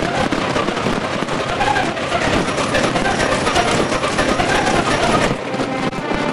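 Fireworks display played back sped up, about five times fast, so that the many bursts run together into a dense, continuous rush of noise, with a short dip in level near the end.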